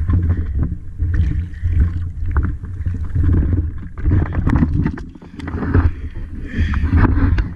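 Small boat on the water: a steady low rumble with irregular knocks and clatter from gear being handled aboard.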